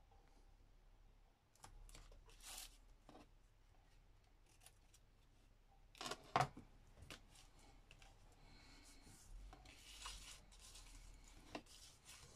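Faint paper-crafting handling sounds: paper and washi tape rustled and rubbed, with scattered light taps and a louder knock about six seconds in.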